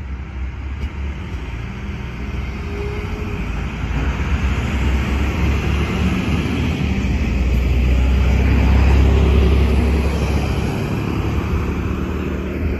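DSB IC3 diesel multiple unit passing close through a station: deep diesel engine drone and the rush of wheels on rails, growing louder as the cars go by and loudest about eight to ten seconds in, then easing slightly as it draws away.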